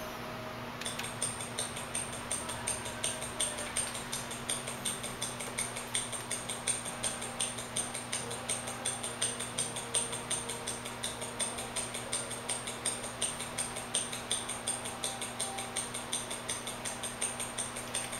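Omega Seamaster De Ville's mechanical movement ticking steadily, picked up by a Witschi Watch Expert II timegrapher microphone and played through its speaker as an even run of sharp clicks starting about a second in. The escapement is running evenly, with about 255° amplitude and 0.1 ms beat error.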